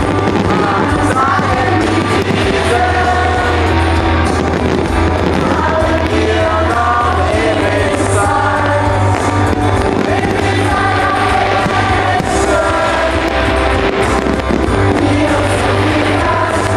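Music with a singing voice over a steady, deep bass line.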